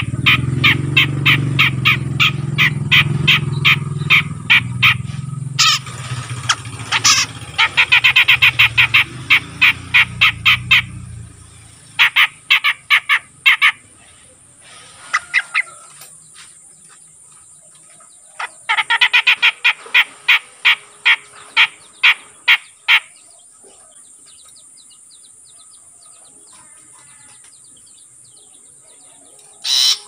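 A grey-cheeked bulbul (cucak jenggot), an untrained young bird that has begun calling often, chatters in bursts of rapid repeated notes lasting a few seconds each, with pauses between, then falls quiet for the last several seconds.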